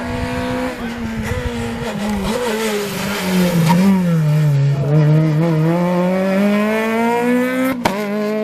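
Peugeot 208 rally car going through a bend at speed. Its engine note falls as it slows for the corner, then climbs steadily as it accelerates away and passes close by. Near the end there is a sharp crack, and the note drops back.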